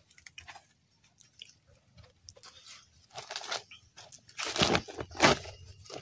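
Crunching and rustling as freshly cut green banana hands and banana leaves are handled. There are a few faint crackles at first, then several louder short crunches in the second half.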